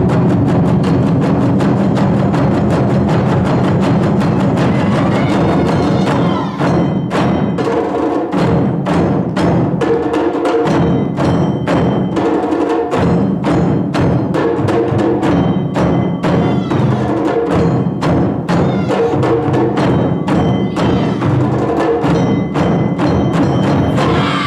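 Japanese taiko drum ensemble playing, a dense, unbroken roll of drumming that gives way about six seconds in to distinct, rhythmic strikes with ringing tones sounding over them.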